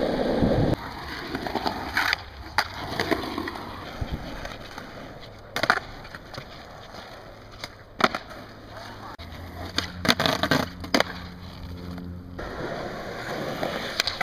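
Skateboard wheels rolling over asphalt and concrete, broken by several sharp clacks of the board popping off the ground and landing during flip tricks.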